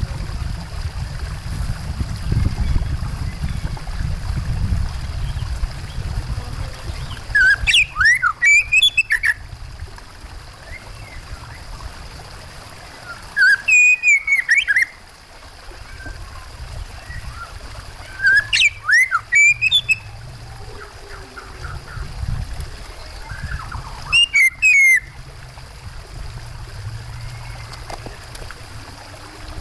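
Oriental magpie-robin (kacer) singing four short, loud bursts of whistled song a few seconds apart, with quick rising and falling notes. A steady low rush of water runs underneath.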